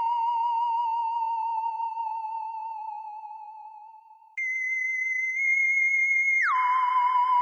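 Sci-fi alien sound effect: a high, wavering electronic tone that slowly fades away over about four seconds. A steadier tone an octave higher then cuts in suddenly, and about two seconds later it glides sharply back down to the wavering lower tone.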